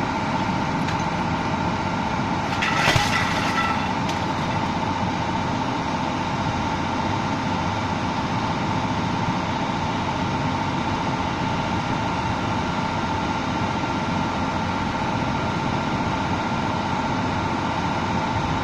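Old rear-loading garbage truck running at a standstill: a steady engine drone with a constant whine over it. About three seconds in, a brief, sharp, high-pitched noise stands out, the loudest moment.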